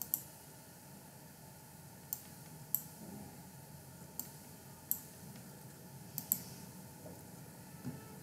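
Scattered sharp clicks at a computer, about nine of them, some in quick pairs, over a faint background hiss.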